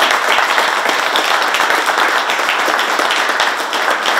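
A room of people applauding: steady, dense hand clapping.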